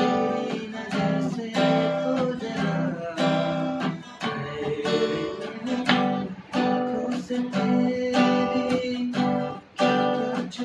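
Guitar strummed in steady rhythmic chords, with short breaks between phrases.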